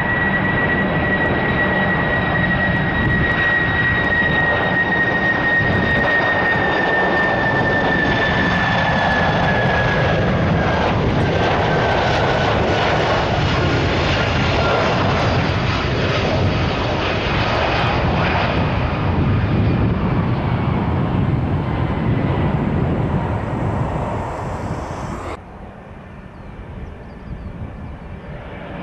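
Boeing 747-400F freighter's jet engines on landing approach: loud, steady jet noise with a high whine that slowly drops in pitch as the aircraft passes. About 25 seconds in the sound cuts off suddenly, leaving fainter jet noise.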